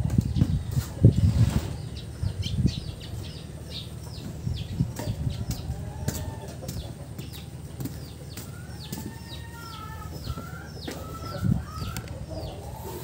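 Birds chirping with many short, falling notes, a few at a time, through the whole stretch, with some lower gliding calls in the middle. Low thumps and rustling come in the first three seconds.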